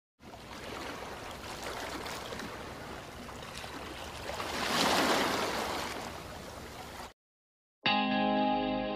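Ocean waves washing over rocks, a steady rush of surf that swells about five seconds in and cuts off suddenly near seven seconds. After a brief gap, guitar music begins near the end.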